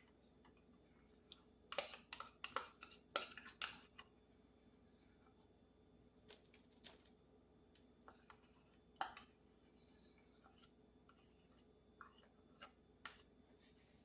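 Light kitchen clicks and knocks of a utensil against a container while sour cream is measured out: a quick cluster a couple of seconds in, then scattered single knocks.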